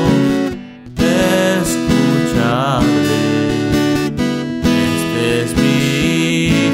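Music from a hymn: a strummed acoustic guitar playing chords with a wavering melody line over it, and a brief break about a second in.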